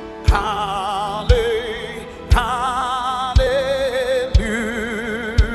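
Slow gospel worship music: a lead melody of long held notes with wide vibrato, moving to a new note about once a second, over a deep drum hit roughly every second.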